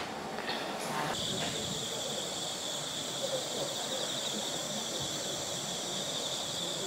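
Night insects trilling steadily in a high, finely pulsing chorus that comes in about a second in.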